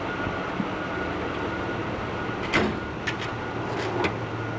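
Metal tool-chest drawer and tools being handled: a knock about halfway through, then a few lighter clicks, over a steady workshop hum.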